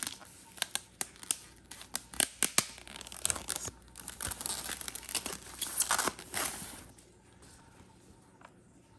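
Thin white paper wrapping rustling and crinkling with sharp crackles as it is pulled off a camera body; it stops about seven seconds in.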